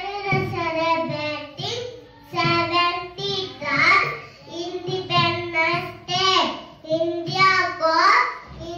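A young boy singing solo in a child's voice, held notes in short phrases with brief breaths between them.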